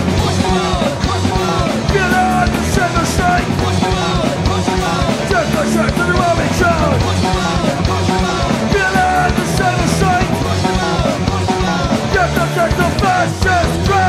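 Oi!/streetpunk band recording playing full-out: drums, bass and distorted electric guitars, with a lead guitar line of quick bending notes over the top.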